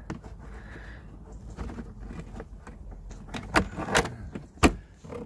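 Hands handling loose plastic and metal parts on a car floor: irregular rustling and clinking, with a few sharp knocks and clicks in the second half, the loudest about four and a half seconds in.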